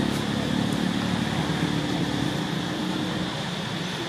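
Steady low hum of a running motor-vehicle engine, easing off about three seconds in, over a steady high hiss.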